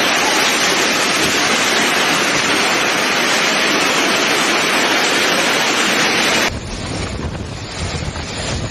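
Storm noise: a loud, steady rushing of wind and water. About six and a half seconds in it cuts abruptly to a quieter, lower rushing noise.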